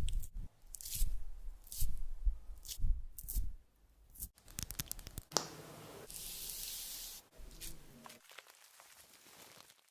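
Makeup products handled close to the microphone: thumps, scratches and clicks, then a steady high hiss lasting just over a second about six seconds in, followed by fainter small clicks.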